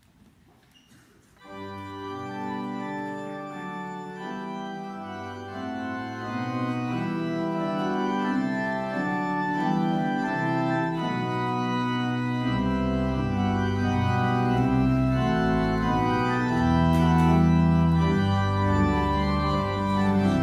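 Church pipe organ starting about a second and a half in and playing held chords that change step by step, the introduction to a congregational hymn; deep pedal bass notes come in about halfway through and the music grows fuller and louder.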